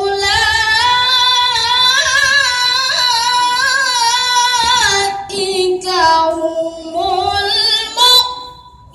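A boy qari chanting Quran recitation (tilawah) into a microphone and loudspeaker system: long, high, ornamented melodic phrases with wavering pitch, a short break about five seconds in, then a lower held phrase that trails off near the end.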